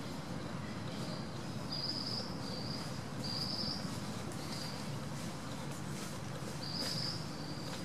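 A high-pitched insect buzz coming in about six short pulses of roughly half a second each, over a steady outdoor hiss.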